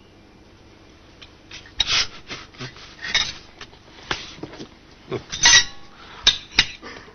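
Dishes and cutlery knocked, scraped and rubbed in irregular bursts, loudest about five and a half seconds in.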